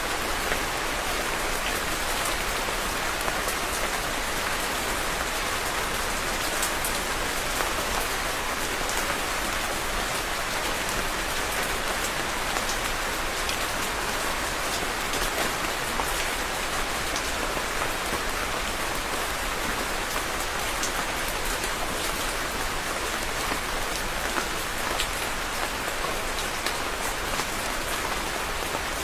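Steady rain falling on a surface, with individual drops pattering sharply throughout.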